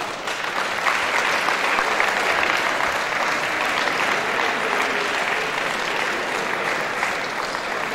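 Audience applauding, steady clapping of many hands that swells in just after the start and holds even.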